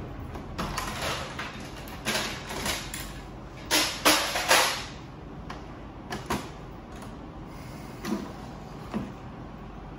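Knocks, clicks and short sliding scrapes of a Ricoh MP C306 copier's parts being handled while the toner hopper housing is taken out, the loudest a quick cluster of three about four seconds in.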